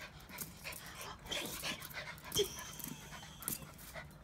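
Excited miniature fox terriers panting and whimpering for their dinner, with a short yip a little past halfway and scattered light taps.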